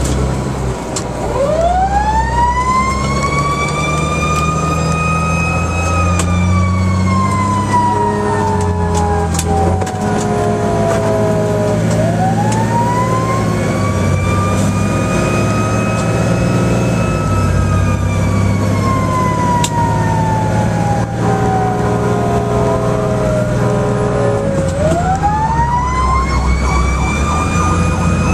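Fire engine siren on an emergency run, wailing up and down over the truck's engine. The pitch winds up over about four seconds, then glides slowly back down over about six; the cycle repeats about every eleven seconds, beginning a third rise near the end.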